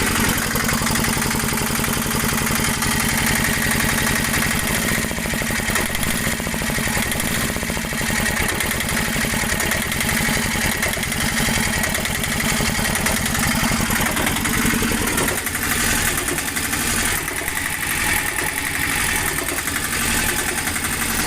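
An engine idling steadily, with no revving.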